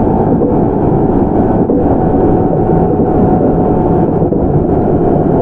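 JR 701 series electric train car, refurbished with a Mitsubishi IGBT inverter, running along the line: a steady, loud rumble of wheels on rail with a faint steady hum.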